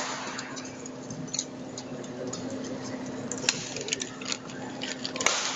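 Badminton rally: sharp racket strikes on the shuttlecock, the loudest about three and a half seconds in and near the end, with lighter ticks and scuffs from the players' footwork on the court, over a steady low hum in the hall.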